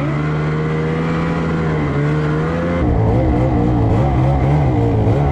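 2022 Lynx Boondocker snowmobile's two-stroke engine running as the sled climbs a trail, heard from the rider's seat. About three seconds in it gets louder and its pitch starts wavering up and down with the throttle.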